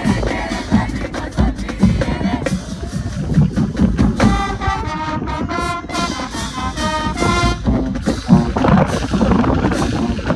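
Marching band playing, with heavy drums throughout and a run of short, punched brass notes in the middle.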